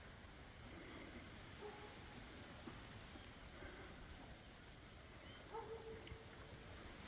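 Faint outdoor ambience with a few short, high-pitched animal chirps scattered through, and a brief low call about two-thirds of the way in.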